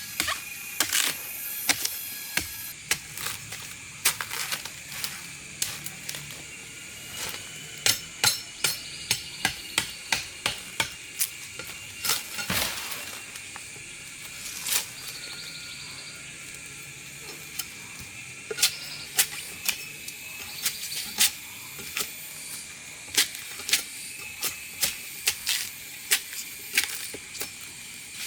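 Many sharp, irregular clicks and knocks, several a second in places, over a steady high hiss with a faint insect-like drone.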